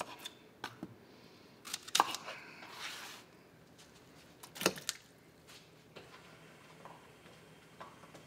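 Scattered knocks and clicks of onions being handled and cut with a knife on a plastic cutting board, then dropped into a roaster pot of water for broth. The two loudest thuds come about two seconds in and just before five seconds; after that only faint room tone.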